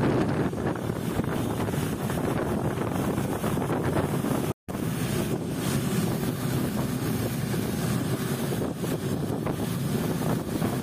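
Longtail boat running at speed: a steady engine drone mixed with wind buffeting the microphone and water rushing past, broken by a brief cut-out about halfway through.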